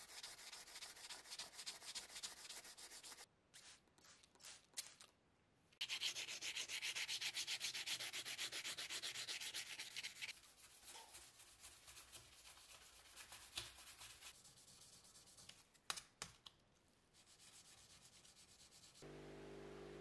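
Wet sanding of a metal lighter body with fine 1000/2000-grit sandpaper on a flat backing: fast back-and-forth rubbing strokes in bouts with short pauses, loudest in the middle, then softer strokes.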